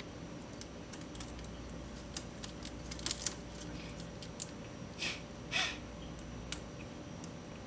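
Tape being handled and pulled, with two short tearing rips about five seconds in, amid scattered light clicks and taps.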